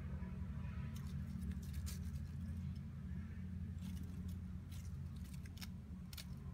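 Tabby kitten chewing a praying mantis: a scattering of short, crisp crunching clicks, over a steady low hum.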